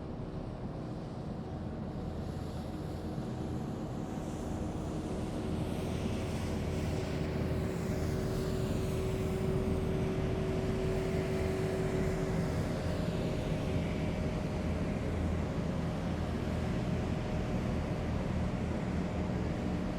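Heavy military vehicles driving past on a city street: a steady low engine rumble with a hum of road noise that swells over the first several seconds and then stays loud.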